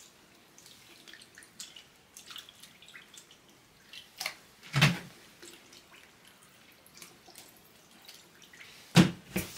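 Wet rabbit skins being lifted, wrung and pushed back down in a plastic bucket of soaking liquid: water dripping and trickling back into the bucket, with a louder splash about five seconds in and two more near the end.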